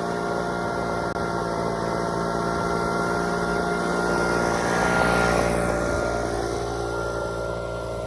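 Poulan Pro PR46BT two-stroke backpack leaf blower running steadily, its engine hum mixed with the rush of air from the nozzle. The sound swells slightly about five seconds in, then eases back.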